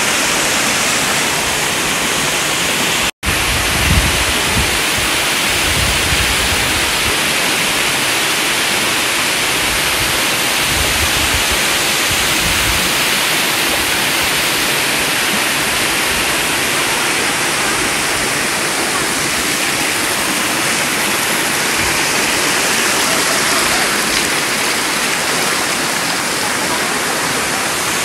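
Silvermine Waterfall's water pouring over the rocks into the pool, a loud, steady rush, with some low rumbling a few seconds in.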